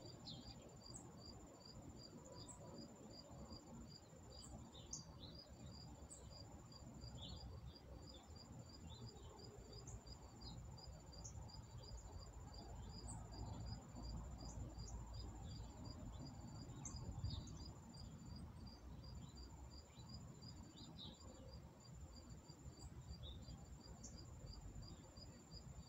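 Faint outdoor summer insect chorus: a steady high trill with a regular chirp about three times a second, over a low background rumble.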